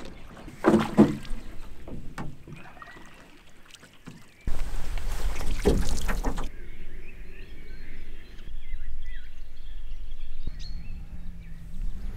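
Canoeing sounds: a canoe launched from a pebbly shore, then paddle strokes dipping and splashing in the water. Small birds chirp faintly through the second half.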